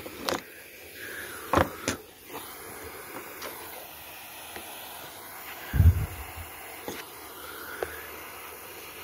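Gas torch hissing steadily as it heats a cracked copper steam pipe for soldering. A few sharp clicks come in the first two seconds, and a louder low thump comes about six seconds in.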